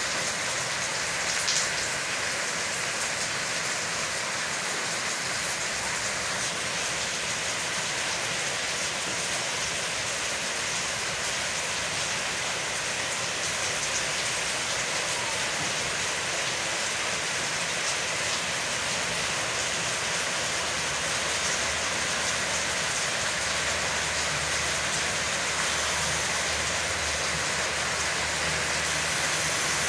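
Heavy rain falling steadily in an even downpour. A low rumble joins about two-thirds of the way through.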